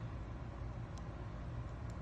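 Steady low background hum and hiss, with one faint click about halfway through.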